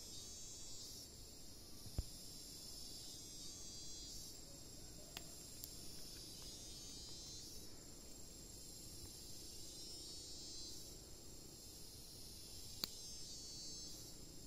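Faint, high-pitched insect chorus in tropical forest, a steady trill that swells and fades every few seconds. A sharp click comes about two seconds in and another near the end.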